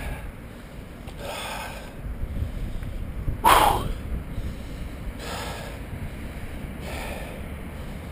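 A man breathing hard and out of breath, four heavy breaths about every one and a half to two seconds, the loudest about halfway through. Low wind rumble on the microphone underneath.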